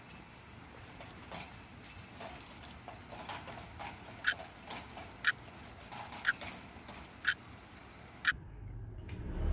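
Rain with scattered drops tapping. From about four seconds in comes a sharp drip-like tick about once a second, five times. Near the end the rain sound cuts out and a low rumble begins to swell.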